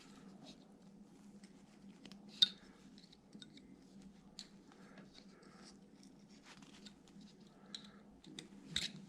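Carving knife tip cutting into wood, faint scratchy slicing and small ticks, with a sharper click about two and a half seconds in and another near the end, over a low steady hum.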